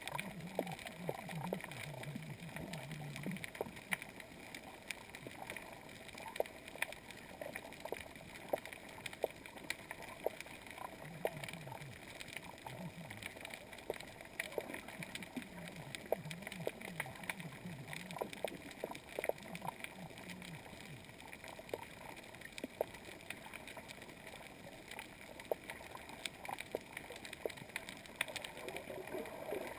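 Underwater ambience on a shallow coral reef: a steady crackle of irregular sharp clicks, with a low wavering hum at a few points.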